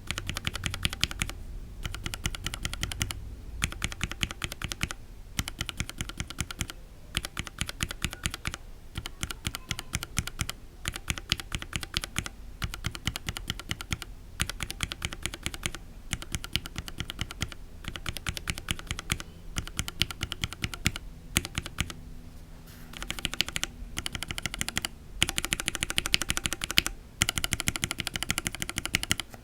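Lubed mechanical keyboard switches, a Gateron Linjar linear and a Cherry MX Black retool, pressed rapidly over and over in short runs about every two seconds. Each press is a bottom-out and top-out clack, more muffled and lower-pitched on the Linjar, sharper and louder on the Cherry.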